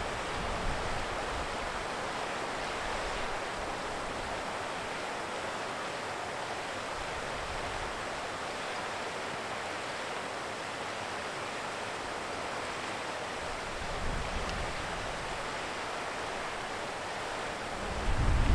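Steady wind hiss, with low rumbles of wind buffeting the microphone about 14 seconds in and again near the end.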